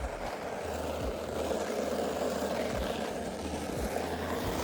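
Sled sliding down a snowy hill: a steady scraping hiss of the sled over the snow, with low wind rumble on the microphone and a few small knocks as it bumps along.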